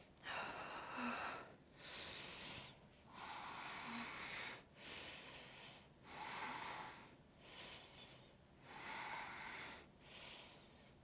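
A woman taking slow, deep breaths, in and out, while holding a yoga pose. There are about eight faint breath sounds, each around a second long, with short pauses between them.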